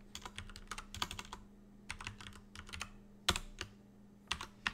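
Typing on a computer keyboard: quick runs of keystrokes, then a few single, harder key presses near the end.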